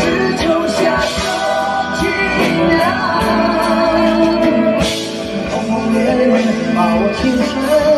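Live band performing: male voices singing into microphones over drums and guitars, heard through the stage sound system.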